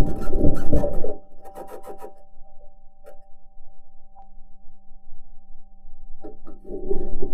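Perseverance Mars rover driving, heard through its entry, descent and landing microphone: rough grinding and clanking from the wheels and suspension working over the surface, loud for the first second, then easing off. Steady electrical hum tones run underneath. A few knocks come about six seconds in, and the grinding builds up again near the end.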